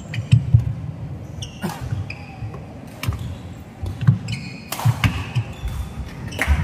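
Badminton rally: the sharp smack of racket strings hitting a shuttlecock, repeated several times a second or two apart. Shoe squeaks and footfalls on a wooden court run between the hits.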